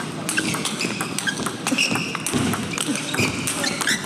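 Table tennis rally: the celluloid-type plastic ball clicking back and forth off the paddles and table, with short squeaks of the players' shoes on the court floor.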